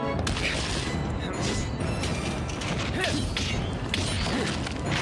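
Tokusatsu fight-scene sound effects: a string of punch and kick impacts, about seven, with whooshes and armour clanks, over background music.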